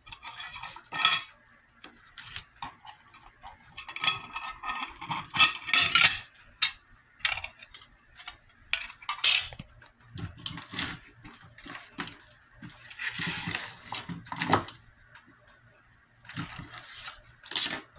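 Small hard objects of metal and glass clinking and clattering as they are handled, in irregular knocks and rattles with several denser bursts of rattling.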